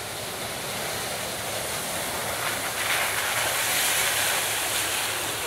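Jeep Wrangler JK driving through a flooded mud hole, its tyres churning and splashing muddy water in a steady rush. The rush grows louder as it comes closer, loudest about three to four seconds in.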